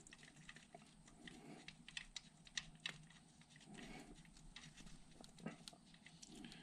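Faint, irregular small clicks and ticks as a Yamaha Nytro's oil drain plug, fitted with a new copper washer, is threaded into the engine by hand.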